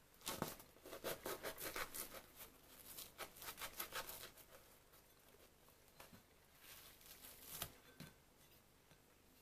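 Table knife sawing through the crisp crust of a bread roll, a dense run of rasping, crackling strokes for about four seconds, then a few softer, spaced cuts as the knife goes through the soft crumb.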